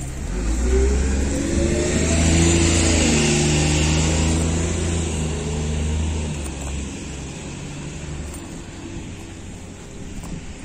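A motor vehicle driving past, its engine and tyre noise swelling about a second in. The engine note drops in pitch as it goes by, then fades over the last few seconds.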